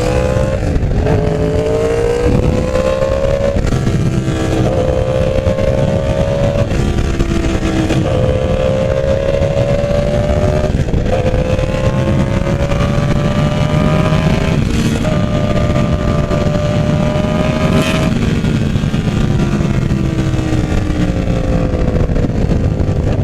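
Yamaha R1 inline-four sport-bike engine under acceleration, heard from the rider's seat: the engine note climbs and drops sharply at each upshift, about six gear changes in a row. It then eases off for the last few seconds, the pitch sliding down. A steady rush of wind runs underneath.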